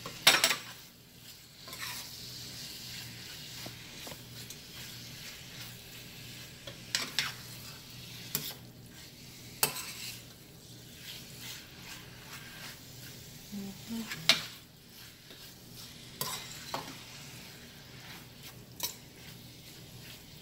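Metal spoon stirring chicken pieces in a stainless steel pot, clinking and scraping against the pot every few seconds, over a steady low sizzle of the chicken and garlic sautéing without liquid.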